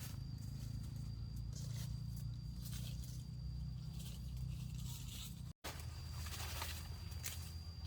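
Several short dry rustling and tearing scrapes over a steady low rumble, with a faint steady high tone throughout; the sound drops out briefly a little over halfway through.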